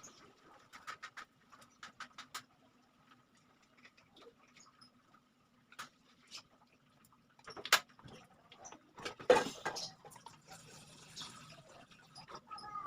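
Scattered light clicks and taps over a faint steady hum, with two louder sharp knocks about 7.5 and 9 seconds in.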